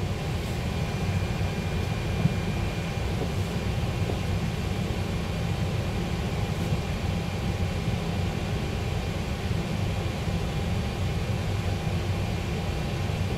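Steady low rumble and hiss of a parked airliner's running systems heard from inside the cockpit, with a faint steady high whine. One short click comes about two seconds in.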